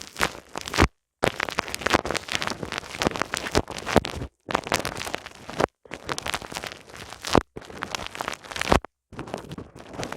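ASMR ear massage: rubbing and scratching right on the microphone's ears, a dense crackling in stretches of a second or more, broken four times by sudden dead-silent gaps.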